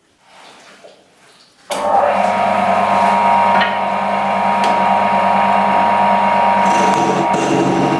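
Wood lathe spinning a wooden vase while a chisel cuts at its foot, a loud steady machine sound with scraping that comes in suddenly a little under two seconds in.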